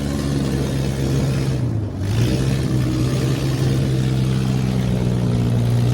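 Dune buggy engine running steadily while driving, easing off briefly about two seconds in and then picking back up.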